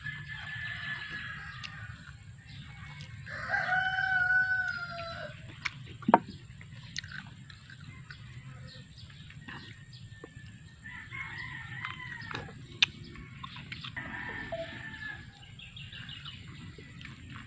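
Rooster crowing: one loud crow of about two seconds, roughly three seconds in, with fainter crows at other moments. Two sharp clicks stand out, one about six seconds in and one near thirteen seconds.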